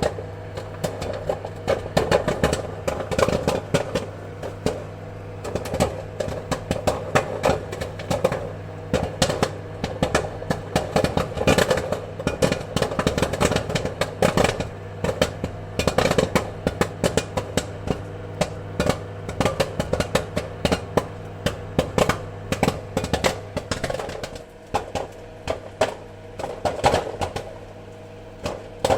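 Popcorn kernels popping rapidly and irregularly, many sharp pops a second over a steady low hum; the popping thins slightly in the last few seconds.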